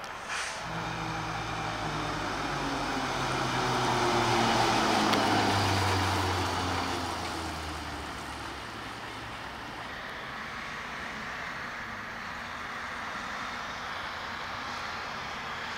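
Military ambulance truck's diesel engine approaching and passing, getting louder and then dropping in pitch as it drives away. After that comes the quieter, steady sound of a more distant vehicle.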